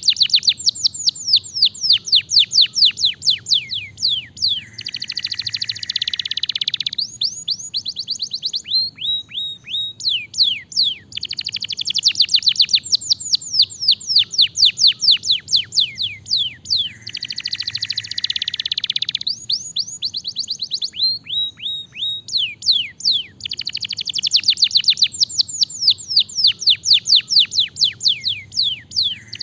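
Domestic canary singing: fast trills of rapidly falling notes alternate with denser rolling passages. The same song phrase comes round about every twelve seconds.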